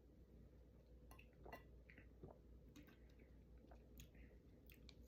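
Faint chewing and mouth clicks of someone eating, a scattering of small wet clicks and smacks over a low steady room hum.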